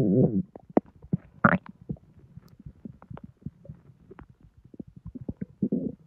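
Intestines of a bloated, distended belly gurgling as they digest a heavy junk-food meal. A pitched gurgle fades out at the start, then come scattered small pops, a short rising squeak about a second and a half in, and another low gurgle near the end.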